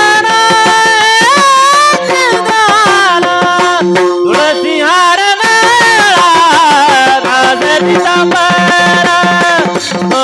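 A voice singing a Marathi song in long held notes with wavering, ornamented glides between them, over tabla accompaniment.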